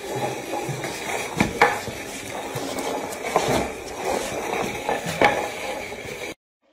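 A plant pot scraping and clattering across a tiled floor as a small dog drags it, with several sharp knocks along the way. The sound cuts off suddenly near the end.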